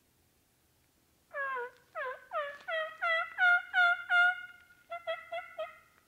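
Hand-blown turkey call sounding a series of hen yelps, about a dozen short notes that build in loudness and then trail off softer and quicker, calling to a gobbler to see if it will answer. It starts about a second in.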